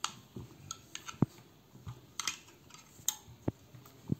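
Scattered clicks, taps and short scrapes as a metal wire-coil soldering-iron holder is handled and tried against the plastic base of a Yihua 908D-II soldering station.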